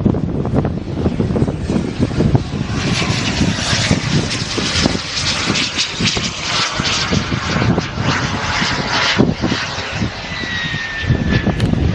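Turbine engine of a radio-controlled model jet running, its hiss swelling for several seconds and then easing, with a thin high whistle falling slightly near the end. Gusty crosswind rumbles on the microphone throughout.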